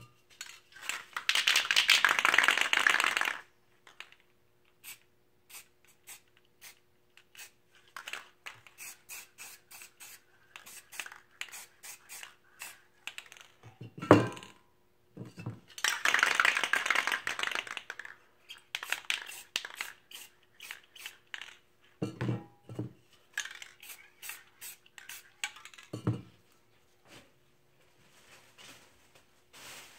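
Aerosol spray paint cans hissing: two long sprays, one about a second in and one a little past halfway, with many short bursts between them. A few knocks sound in between, the loudest a little before halfway.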